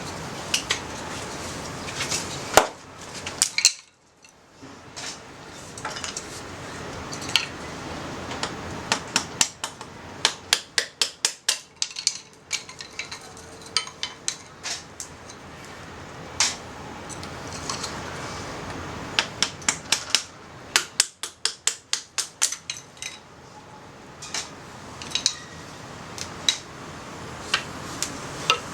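Wood fire crackling: many sharp, irregular pops and snaps over a steady rushing noise, coming in quick runs at times.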